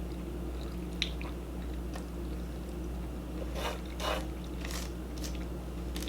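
A person chewing and biting food close to the microphone, with a few wet smacks and crunches.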